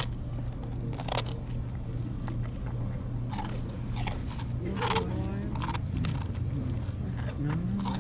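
Biting and chewing crunchy rye toast: several crisp crunches at irregular intervals, over a steady low hum and faint background voices.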